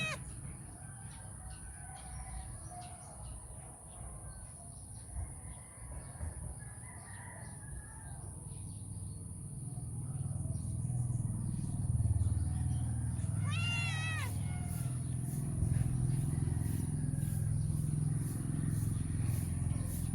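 Domestic cat meowing once, a short call rising and falling in pitch about two-thirds of the way in, over a low rumble that grows louder through the second half.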